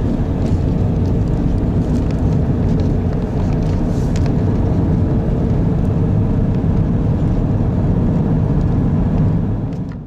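Car driving along: a steady rumble of engine and tyres on the road, cutting off at the very end.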